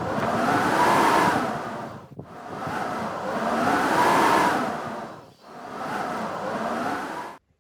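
Blizzard wind blowing in three strong gusts, each swelling and dying away with a faint howl that rises and falls in pitch, before cutting off abruptly near the end.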